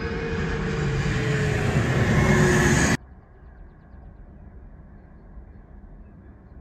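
Twin rear-engined regional jet passing low overhead with its landing gear down on final approach: jet engine noise growing louder with a whine falling in pitch. It stops abruptly about three seconds in, leaving a faint, steady low rumble.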